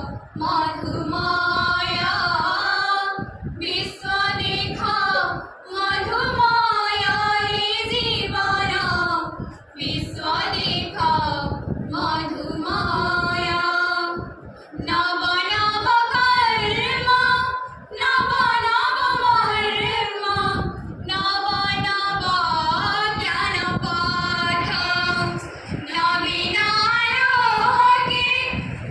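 A small group of young women singing a melody together into a microphone, heard through the hall's loudspeakers. The song runs in sung phrases a few seconds long, with short breaks between lines.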